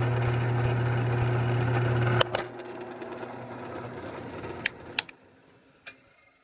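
Drill press motor running with a steady hum, switched off about two seconds in with a click and winding down over the next few seconds, followed by a few light clicks.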